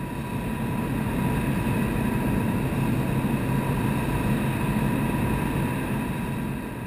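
Steady outdoor rumbling noise with a faint steady hum above it, fading in and then fading out near the end.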